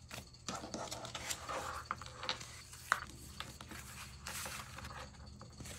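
Paper sticker sheets being handled: faint rustling and light scraping, with a few small ticks, the sharpest about three seconds in.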